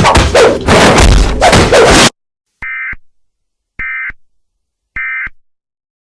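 Very loud, heavily distorted noise cuts off abruptly about two seconds in. Three short electronic beeps follow, about a second apart.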